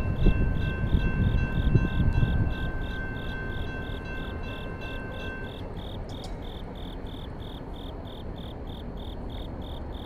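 Crickets chirping in a steady pulse, about three chirps a second, over the low rumble of a departing freight train that fades away in the first two or three seconds. A faint steady tone stops about halfway through.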